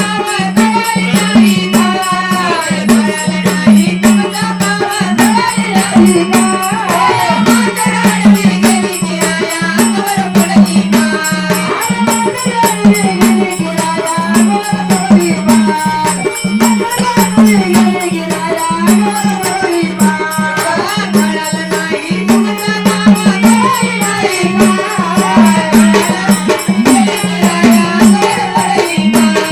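Marathi folk song music: a gliding melody over a steady drone and an even, fast percussion beat.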